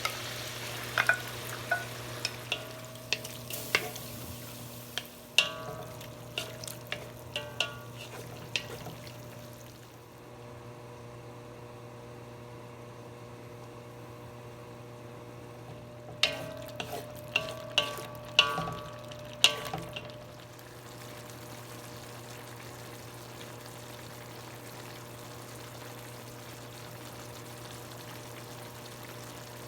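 Pork, liver and spleen frying in a pan, stirred with a metal utensil. There are two spells of ringing clinks and scrapes, the first in the opening nine seconds and the second around the middle. Under them is a steady sizzle and a constant low hum.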